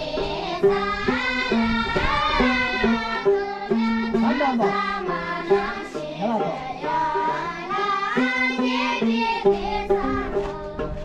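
Song: a voice singing a wavering melody over a plucked string accompaniment.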